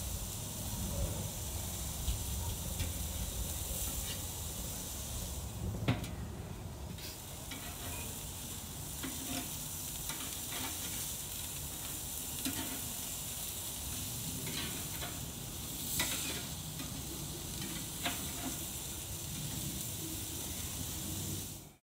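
Hamburger steak patties sizzling on a grill grate, with a few sharp clicks and scrapes of a metal spatula against the grate as they are lifted and turned.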